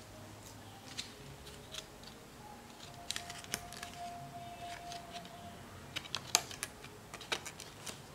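Small sharp clicks and taps from fingers handling a cardboard hang tag on a football shirt. The clicks come in an irregular scatter, clustered about three seconds in and again from about six to seven and a half seconds.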